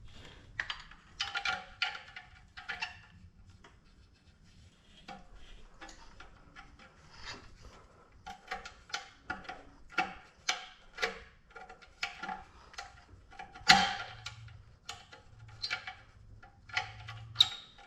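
Irregular metallic clinks and knocks with a short ring, from an aftermarket exhaust pipe being worked and pushed into place on the motorcycle.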